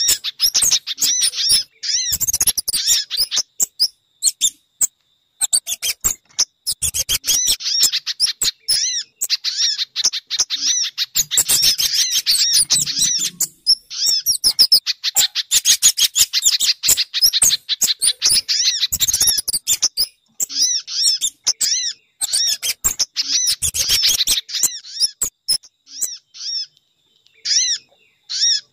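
Bird-lure recording of small songbird calls, a mix of sogon (crimson sunbird), pijantung (spiderhunter) and kemade: rapid series of sharp, high chip notes in bursts several seconds long, with short breaks between them.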